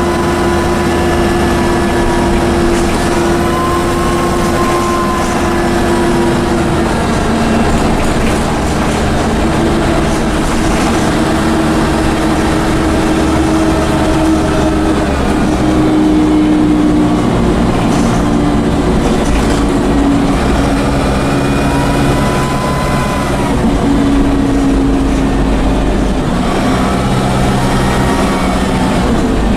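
Dennis Dart bus's Cummins diesel engine pulling through its Allison automatic gearbox. The engine note steps to a new pitch several times as the gearbox changes gear, and a thin turbocharger whine rises and falls above it. The bus is tagged as knackered.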